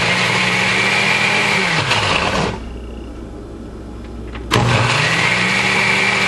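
Oster blender motor running, puréeing chopped peppers, onion and tomato with a little water. It winds down and stops about two seconds in, then starts up again about four and a half seconds in.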